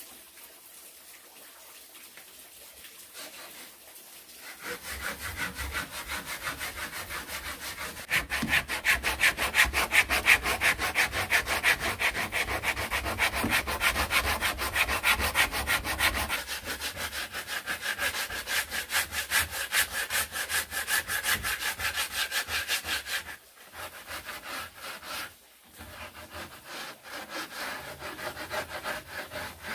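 Hand saw cutting through wood in quick, even back-and-forth strokes, about three or four a second. The sawing starts about four seconds in and pauses briefly twice near the end.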